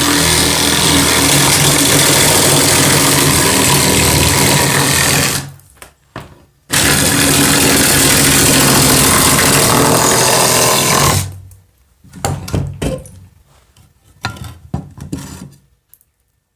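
Electric drill driving a Malco slate-cutter attachment through roofing slate, running in two steady stretches of about five seconds with a short pause between. After that come several scattered knocks and clicks.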